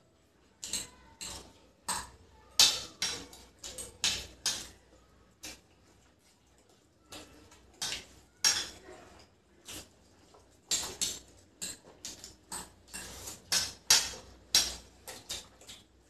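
Forks and spoons clinking and scraping against plates of noodles and curry, in quick irregular clatters with a lull about six seconds in.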